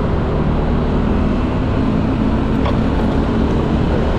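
Yamaha Aerox scooter riding along in city traffic: a steady rumble of engine, road and passing traffic, with a faint engine hum under it.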